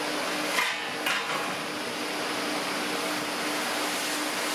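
Steady rushing air of an electric forge blower with a constant hum. Two short metal clinks come about half a second and a second in, as steel tongs handle the hot axe head.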